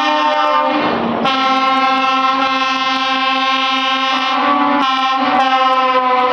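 Truck air horns sounding in long held blasts, several tones at once, as trucks drive past one after another. The horns break off briefly about a second in and change chord again near five seconds in.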